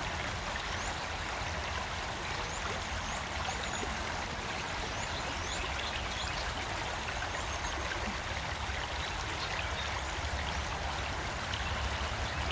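Creek water running over rocks, a steady rushing noise, with a few short faint high chirps in the first few seconds.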